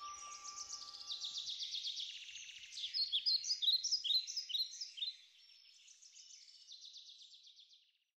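Birdsong: quick runs of high chirps and trills, loudest about three to four seconds in, then fading out just before the end. The last of a background music track dies away in the first second and a half.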